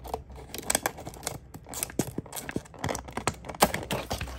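Clear plastic blister packaging being handled and cut open with scissors: irregular crinkles, clicks and scrapes.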